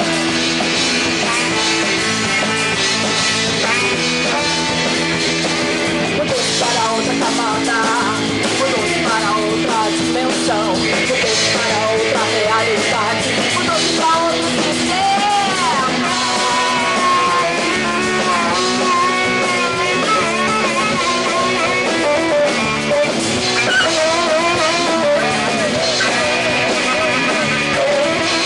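Rock band playing live: guitar, drum kit with cymbals, and a voice singing, all running steadily with no break.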